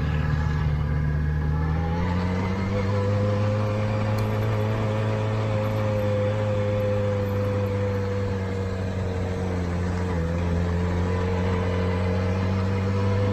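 Motorcycle engine running steadily at low speed under way. The revs step up a little about two seconds in and ease briefly around ten seconds in.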